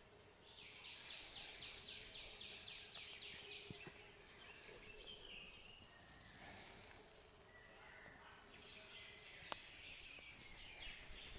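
Faint background with a rapid chirping animal call, about five notes a second, heard twice, and a single sharp click about two-thirds of the way through.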